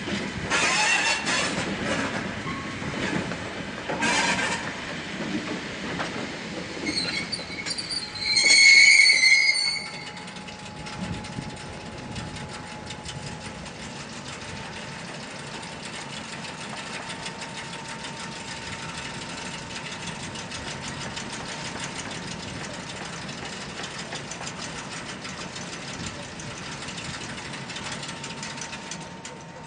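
A pair of ED45 electric locomotives hauling a single Wamu boxcar through a rail yard, with wheels clanking over the rails. A brief high wheel squeal comes about eight to nine seconds in, then a quieter steady running sound.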